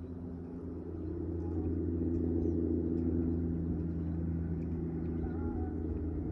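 A motor engine droning steadily with a low hum, growing louder about a second in and then holding.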